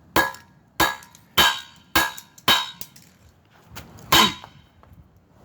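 A toy car being bashed with a series of hard blows: five quick hits about 0.6 s apart, then, after a short pause, one heavier blow about four seconds in.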